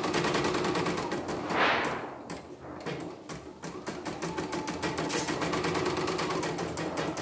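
CNY portable embroidery machine stitching a test design, its needle mechanism clattering in a fast, even run of ticks. A short rush of noise about a second and a half in is the loudest moment. The machine is running on a newly replaced power supply.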